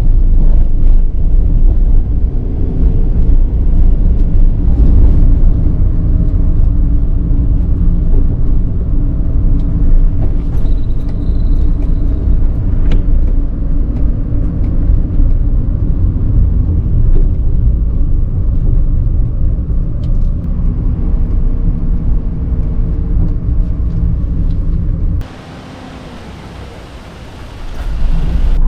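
Suzuki Every kei van driving, its engine and tyres making a steady low road rumble. Near the end it cuts abruptly to a quieter, even hiss for about three seconds before the rumble comes back.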